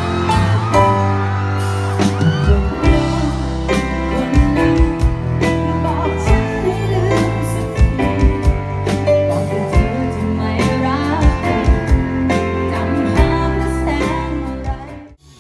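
Live band music with a woman singing into a microphone over drums and backing instruments, the drums striking steadily; the sound drops away abruptly near the end.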